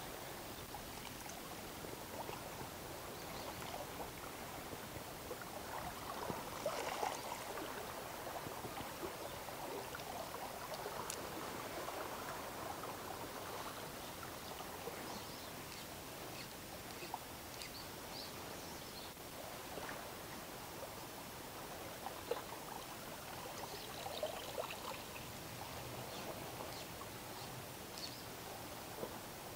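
Small waves lapping and trickling among shoreline rocks: a faint, steady wash of water.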